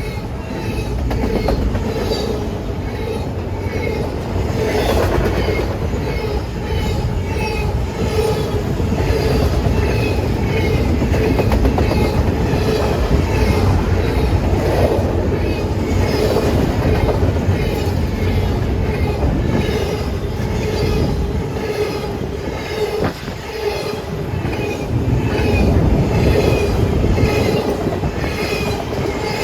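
Railcars rolling past in a long train, a continuous rumble with a steady ringing tone from the wheels and regular clicks as the wheels pass over the track.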